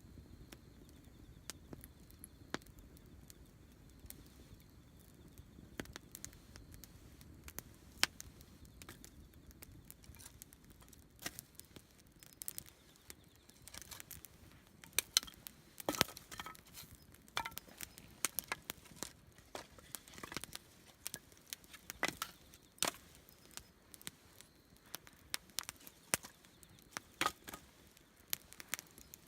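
Wood campfire crackling, with sharp pops and snaps that come sparsely at first and much thicker from about a third of the way in.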